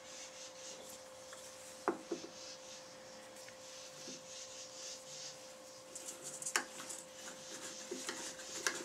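Quiet handling of the oak pot-call blank on the lathe's threaded mount, being unscrewed and screwed on: faint rubbing and scraping with a sharp click about two seconds in and another about six and a half seconds in, over a steady shop hum.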